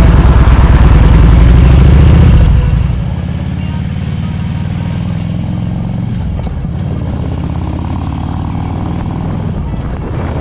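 2000 Harley-Davidson Road King Classic's fuel-injected Twin Cam 88 V-twin running under way. It is loud with a strong low beat for about two and a half seconds, then drops to a quieter, steady run as the throttle eases off.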